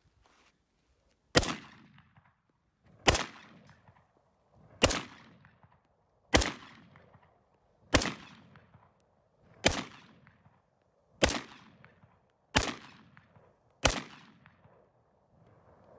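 Yugoslav SKS 59/66A1 semi-automatic rifle in 7.62x39 firing nine single shots at a steady pace, about one every one and a half seconds. Each shot is a sharp crack that trails off in a short echo.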